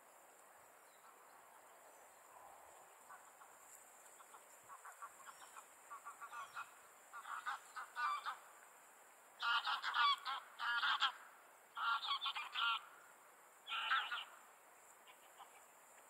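Common cranes calling: a run of rolling, trumpeting calls that starts faint and grows louder, the loudest groups coming about two-thirds of the way through, with one last call a little later.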